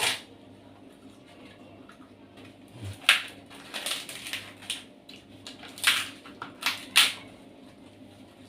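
Crisp fried food being bitten and chewed close to the microphone: a sharp crunch at the start, then a run of loud crunches from about three seconds in, over a low steady hum.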